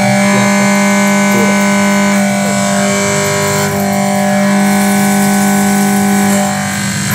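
CNC milling cutter with indexable inserts cutting steel, giving a steady whining hum of several pitches over a hiss. The pitches change about three and a half seconds in as the machine moves to another cut.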